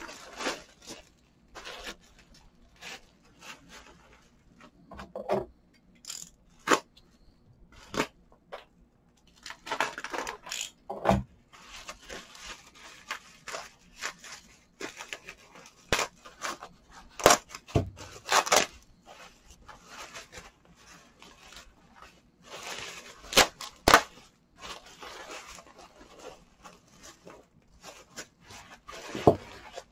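Plastic packaging being unwrapped by hand: a plastic mailer bag and bubble wrap rustling and crinkling, with irregular sharp crackles and clicks.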